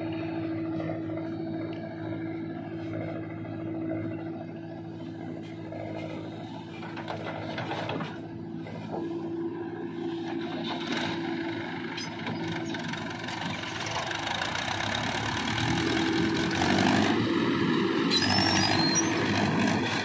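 Diesel engines of a JCB 3DX backhoe loader and a Mahindra tractor running steadily with a constant hum. Over the last few seconds the engine noise grows louder as the loaded tractor pulls away.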